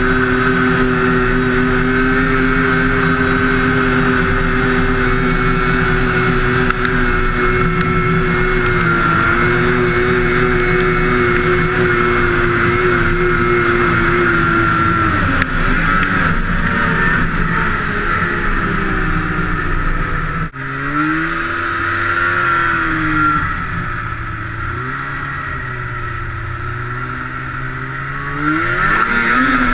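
Two-stroke snowmobile engine running at high revs with a steady pitch, then easing off about halfway through, its pitch wandering up and down, and revving back up near the end.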